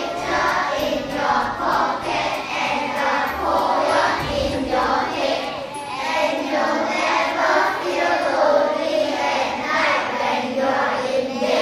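A class of children reciting a poem together in unison, many young voices chanting in a rhythmic, sing-song way.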